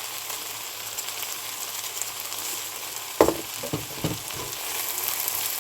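Fried rice with Spam and kimchi sizzling in a frying pan, a steady hiss. A little over three seconds in come about four quick knocks, the first the loudest.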